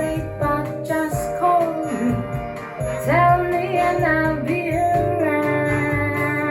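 A song with a high sung voice gliding between held notes over steady bass and instrumental accompaniment, played back through Totem Model 1 Signature hi-fi loudspeakers.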